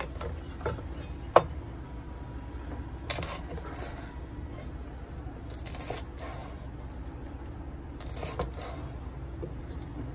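A cleaver-style chef's knife cutting fresh lemongrass stalks on a wooden chopping board. A few sharp knocks on the board come in the first second and a half, the sharpest about one and a half seconds in. Three separate slicing cuts, each about half a second long, fall roughly three seconds apart.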